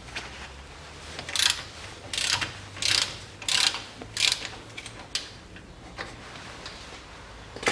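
Hand ratchet clicking in short runs, about five bursts in three seconds, then a few lighter ticks and a sharp click near the end, as it loosens the drain plug on the rear axle differential.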